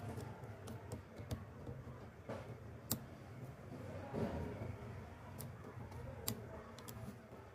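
Irregular sharp clicks and taps of a small metal tool picking at the hub label of a plastic PC case fan, over a low steady hum.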